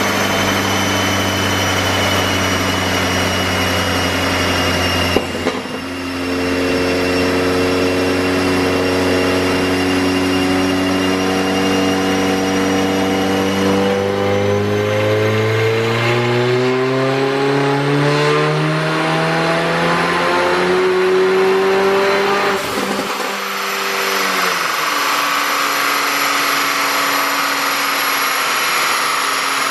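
Mercedes-AMG CLA45's turbocharged 2.0-litre four-cylinder running on a chassis dyno: steady at first, with a sharp click about five seconds in. From about halfway its revs climb steadily for some eight seconds in a dyno pull, then the throttle closes, the pitch drops suddenly and it runs on steady at a lower pitch.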